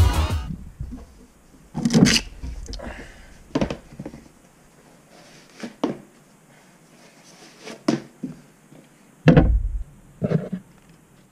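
Intermittent rustles and knocks of someone putting on running shoes on a tiled floor and picking up in-ear headphones from a table. The sharpest knocks come about two and about nine seconds in.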